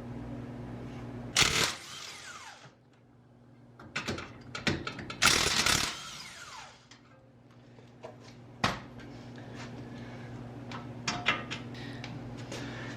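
Metal tools and suspension parts clanking and rattling in a few short, loud bursts, over a steady low hum.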